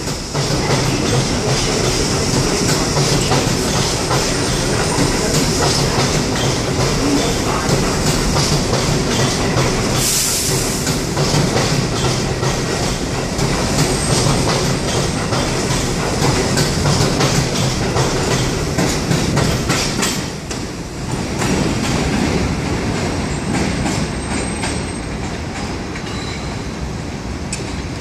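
New York City Subway R62A train cars rolling past along an elevated platform: a steady rail rumble with the wheels clacking over rail joints. A short hiss comes about ten seconds in, and the sound eases off about twenty seconds in as the train draws away.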